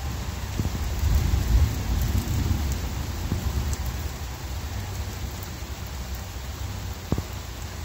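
Heavy rain pouring down on the street and pavement, with a low rumble that swells about one to three seconds in.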